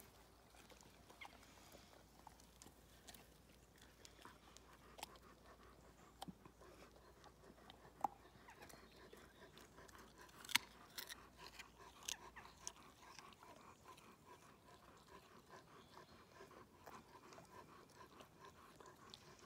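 A German Shepherd chewing a piece of apple: faint, scattered crunches and sharp clicks of the bite, a few of them louder.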